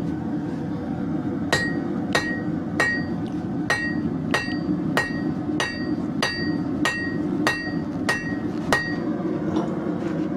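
Hand hammer striking hot leaf-spring steel on an anvil, about a dozen even blows a little over half a second apart, each with a short metallic ring; the blows begin about a second and a half in and stop near the end. A steady low noise runs underneath.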